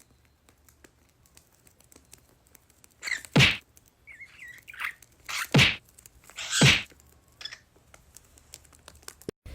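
Three short smacking sounds, each swooping down from high to low, with a brief warbling chirp from a small pet bird between the first two.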